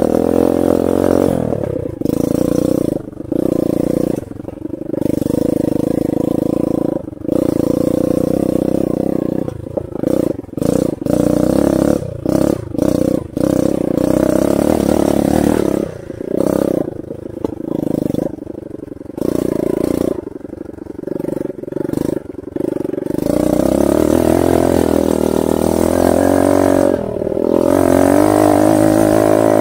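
Vehicle engine running under changing throttle, its note rising and falling, cutting back briefly again and again through the middle stretch and running steadier and louder near the end.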